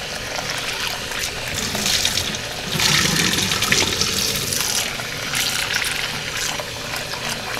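Kitchen faucet running into a plastic bowl of salmon eggs in a stainless steel sink, the water splashing and spilling as the bowl is tilted and turned. It gets louder for a stretch about three seconds in.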